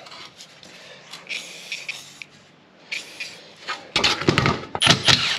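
Aerosol can of penetrating spray hissing in several short bursts onto the bolts of a steel drum-brake backing plate. About four seconds in, a run of loud metallic clunks and knocks as the backing plate is handled on the workbench.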